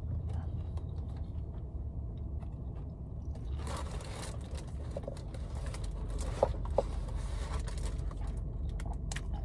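Chewing of a mouthful of cheesesteak, with paper wrapper crinkling and a cardboard takeout box being handled, over a steady low hum. Two short sharp taps come about six and a half seconds in.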